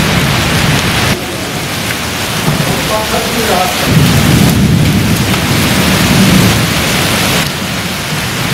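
Heavy rain and hail pelting wet ground in a thunderstorm: a dense steady hiss, with low rumbling swells twice and abrupt changes about a second in and near the end.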